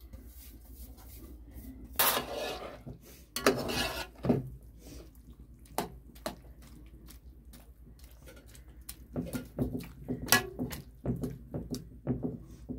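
Pots, dishes and utensils being handled: two short scrapes about two and three and a half seconds in, then scattered clinks and knocks, busier near the end.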